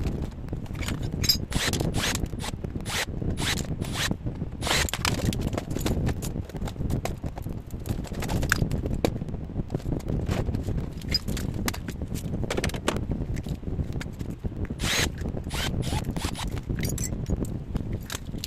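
Irregular short scraping and rasping strokes, sometimes several in quick succession, over a steady low rumble.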